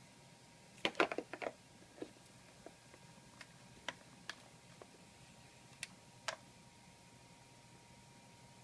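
Small plastic clicks and taps of buttons being pressed on a Turnigy i10 RC transmitter that won't turn on. A quick flurry comes about a second in, then single clicks every half second or so, stopping after about six seconds.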